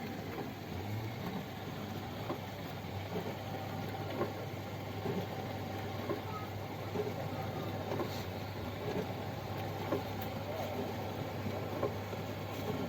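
Hermitlux countertop dishwasher running its wash cycle: a steady motor hum with water splashing and small irregular ticks inside the tub.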